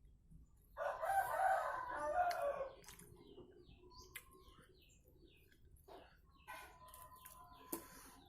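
A rooster crows once, for about two seconds, starting about a second in. Small birds chirp, and there are a few sharp clicks.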